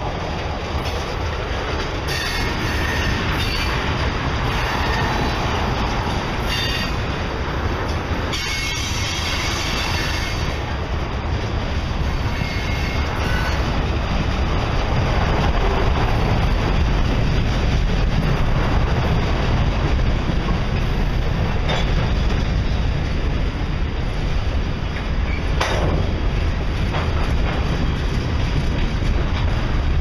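Norfolk Southern freight train's cars rolling past close by: a steady rumble of wheels on rail with occasional clacks. Brief high-pitched wheel squeals come a couple of seconds in and again around eight to ten seconds.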